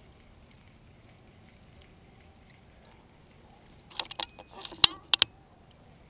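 Handling of a fishing rod and reel in a kayak: a quick cluster of clicks and knocks starting about four seconds in, ending in three sharp clicks.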